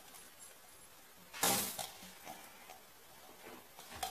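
The cut-down bottom of an aluminium soda can being shaken to throw off rinse water: one short swishing shake about a second and a half in, followed by a few light taps and clinks of the thin metal.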